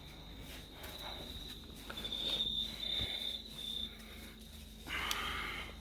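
Crickets trilling steadily in the background, with a single knock about three seconds in and a brief rustle of handling noise near the end.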